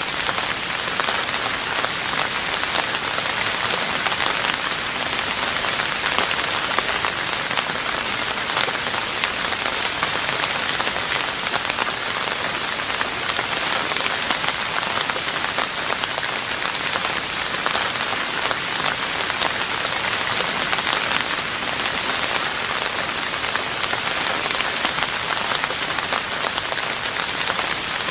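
Steady rain falling on a roof: an even, unbroken hiss of many small drop impacts that neither builds nor eases.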